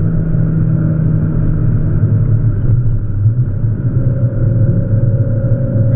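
The Peugeot 306's 1.8-litre XU7JP4 four-cylinder engine, fitted with Jenvey individual throttle bodies, running hard on track, heard from inside the cabin. It is loud and holds fairly steady revs.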